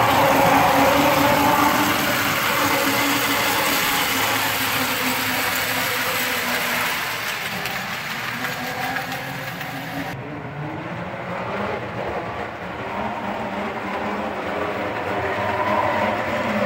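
Prewar American Flyer O gauge electric toy train running on its track: a steady motor hum and whir, with the wheels rattling over the rails. It gets quieter midway and louder again near the end as the train comes past.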